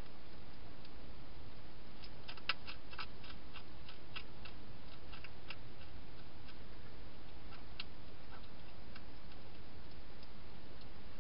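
Hedgehog eating: irregular small crisp clicks and ticks, bunched from about two to five seconds in, then sparser, over a steady hiss.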